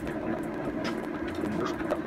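A couple of faint light clicks over a steady low background hum, as the generator cover is worked loose from a motorcycle engine by hand.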